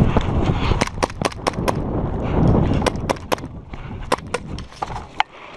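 Airsoft gas pistols firing a string of sharp shots, in quick groups of two to five, over a low rumble in the first half.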